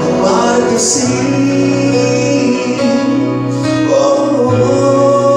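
A man singing into a handheld microphone over a backing track, holding long notes.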